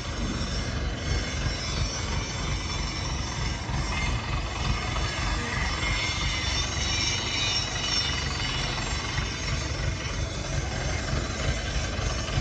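A machine running steadily: a constant motor drone with a high hiss and faint whine over it.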